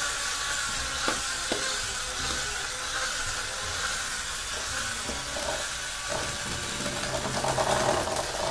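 Electric hand mixer running with a steady motor whine, its beaters churning flour into beaten eggs, with a couple of short knocks about a second in. The mix is too dry and crumbly: too much flour for the eggs.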